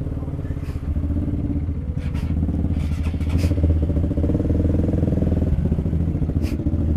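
Motorcycle engine running steadily, with a few short clicks and clatters at about one second, between two and three and a half seconds, and near the end.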